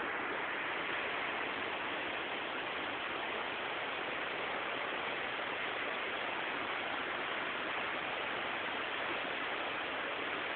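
Rushing stream water, a steady, even rush.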